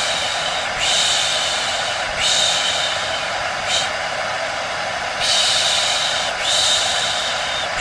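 Hair dryer running steadily as white noise, with a faint steady hum. Repeated high hissing bursts, each under a second long, come and go about every second or so over it.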